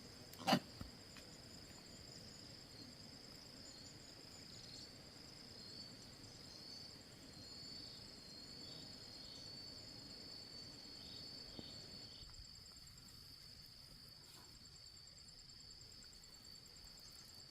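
Insects, crickets or similar, trilling in a continuous high-pitched drone with a faint pulsing trill above it. A low background rumble fades out about twelve seconds in.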